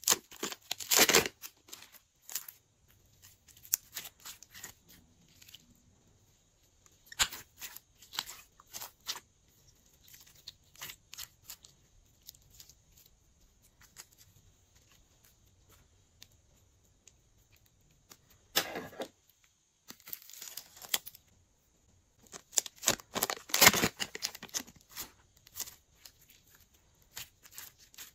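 Slime being squeezed and worked in plastic piping bags: sticky crackling and plastic crinkling in bursts with pauses of a few seconds between them.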